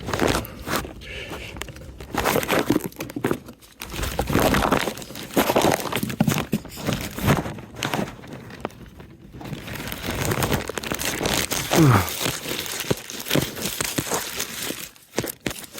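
Honeycomb being broken apart and pulled out by hand, with irregular crinkling, crunching and crackling.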